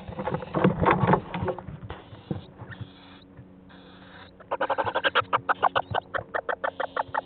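Little owls in a wooden nest box: scuffling and bumping in the wood-shaving bedding for the first couple of seconds. From a little past halfway comes a rapid, even run of short hissy calls, about five a second.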